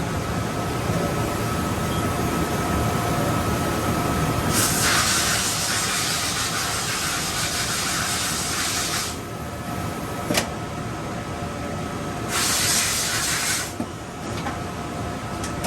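Kitamura Mycenter 0 vertical machining center doing an automatic tool change: a steady machine hum with a faint whine, then a long hiss of compressed air lasting about four seconds, a sharp clack, and a second, shorter air hiss near the end.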